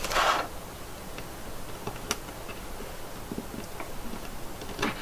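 Small plastic clicks and ticks, a few scattered at irregular intervals, from the joints and parts of a phat! Parfom Asuka action figure being handled and posed. A brief soft hiss comes right at the start.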